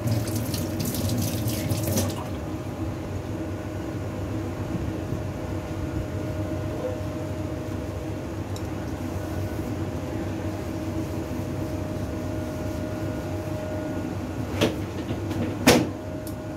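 Water running, splashing for the first couple of seconds, over a steady hum, with two sharp knocks about a second apart near the end.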